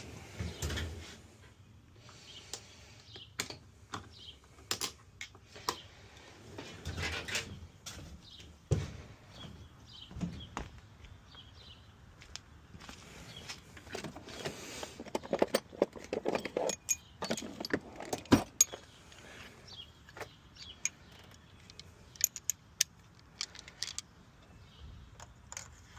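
Metal hand tools clinking and rattling in an engine bay: a spark plug socket and its extension being fitted and worked to remove a spark plug. There are scattered sharp clicks and knocks, with a busier run of clinks about two-thirds of the way in.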